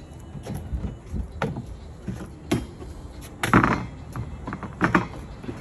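A propane tank cover being handled and fitted over the tank: a series of about six separate knocks and clatters, the loudest a little past the middle.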